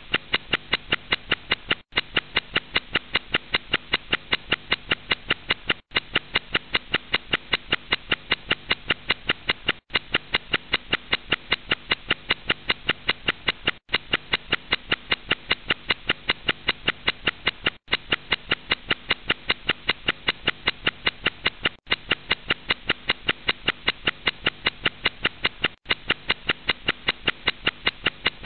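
A looped backing track of sharp, evenly spaced beats at about four a second over held tones, with a short break every four seconds as the loop restarts.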